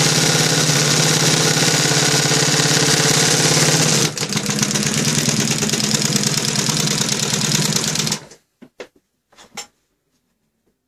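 Industrial embroidery machine running at speed, its needle stitching rapidly over a steady motor hum. The sound cuts off about eight seconds in, followed by a few light clicks.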